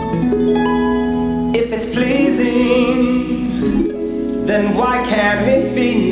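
Harp music playing: plucked harp notes, joined about a second and a half in by fuller held notes with vibrato, with a singing voice coming in.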